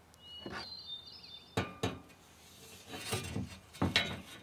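A handful of light clinks and knocks from an aluminium straightedge and spirit level being shifted on top of a plastic water tank. A bird chirps briefly in the first second.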